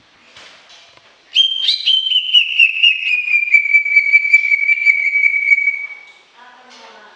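Cucak ijo (leafbird) singing one long whistled note that starts about a second in, slides slowly down in pitch with a fast flutter and lasts about four and a half seconds, followed near the end by a short, lower call.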